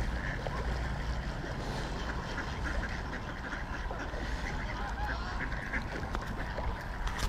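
A flock of ducks quacking on a pond, many short calls overlapping continuously, over a steady low rumble.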